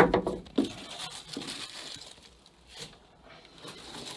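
Scratching and rustling through dry mud and debris in the bilge of an old wooden boat. Two sharp knocks come at the start, about half a second apart, then quieter scattered crackles.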